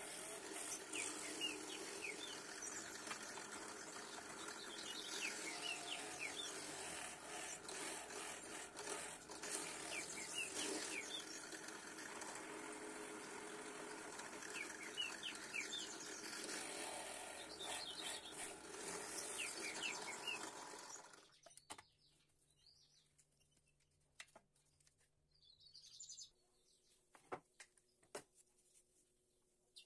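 Benchtop drill press running steadily as a Forstner bit bores holes in a pine board, with small birds chirping now and then; the machine noise cuts off abruptly about two-thirds of the way through, leaving near quiet with a few light knocks and clicks of wood being handled.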